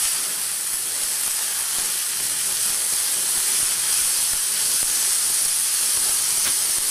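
Diced onion, carrot and pickled cucumbers frying in olive oil in a frying pan, sizzling with a steady hiss.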